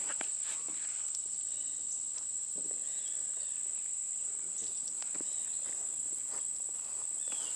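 Steady high-pitched drone of insects singing, with a few faint knocks and rustles.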